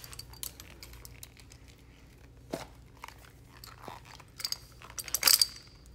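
Rubber plastisol guard being worked off a Husky 1AS fuel nozzle: scattered clicks and rubbing of rubber on metal, with a louder flurry of crunching handling noise about five seconds in.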